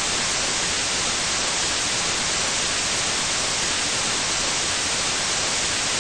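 Steady, unchanging static hiss, like white noise, with no other sound in it.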